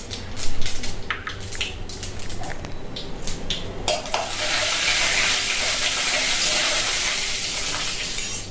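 Mustard seeds and urad dal frying in oil in an aluminium kadai, stirred with a steel slotted spoon. First come scattered sharp clicks and scrapes of the spoon against the pan. From about four seconds in there is a steady sizzle, which stops just before the end.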